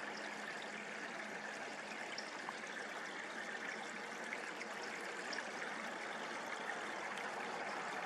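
Steady trickle of running water from the creek.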